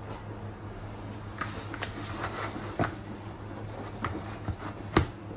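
Hands dividing and shaping bread dough on a kitchen counter: soft handling noise with a few scattered taps and knocks, the sharpest about five seconds in, over a steady low hum.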